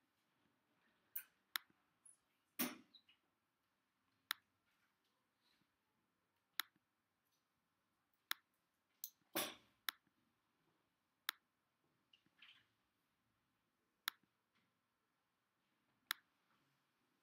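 Sparse, irregular sharp clicks of a computer mouse and keyboard, roughly one every second or two, with two duller, longer knocks, one near the start and one about halfway through.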